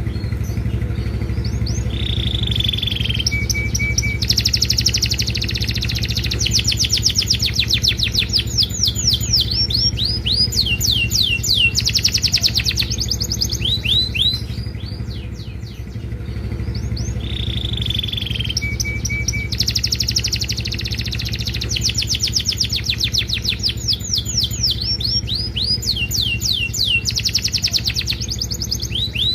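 Domestic canary singing energetically: long, fast trills of rapid rising and falling whistles, with a short held note and a few brief low pips between rolls. The same song sequence plays twice, about fifteen seconds apart.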